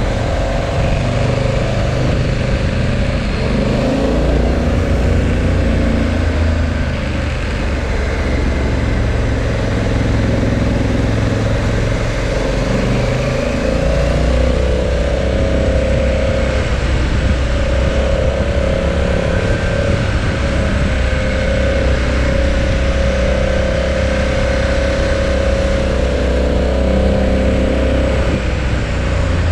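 Motorcycle engine running on the road, its pitch stepping up and down with throttle and gear changes, over a steady rush of wind noise.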